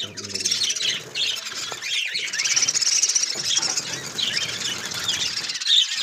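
A flock of caged lovebirds calling, with many shrill chirps and squeals overlapping without a break.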